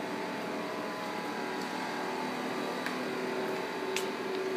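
Steady hum of running machinery, holding several constant tones, with a few faint sharp clicks partway through and near the end.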